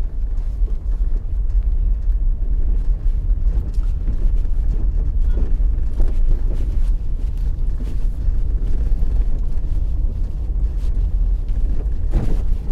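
Vehicle driving over a rough, potholed road, heard from on board: a steady low rumble of engine and tyres with scattered short knocks from the uneven surface.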